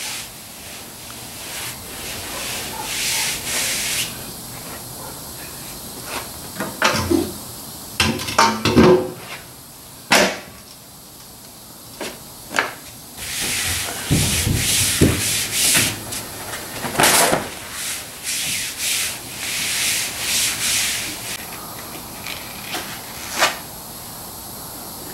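Hands rubbing and smoothing a canvas landau top down onto a car roof, in repeated stretches of rubbing with scattered knocks between them.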